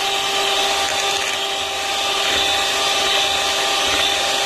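Electric hand mixer running steadily at a constant speed, with a steady motor whine, its beaters whipping all-purpose cream in a glass bowl until it turns smooth and white.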